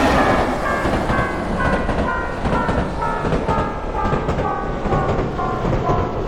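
A train passing with a rumbling clickety-clack while a Japanese railroad crossing bell rings its alternating two-tone "kan-kan" about twice a second, the bell's pitch slowly sinking.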